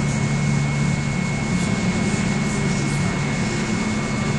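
A steady low mechanical hum under a constant hiss and a thin high whine, with a few faint, brief scraping sounds.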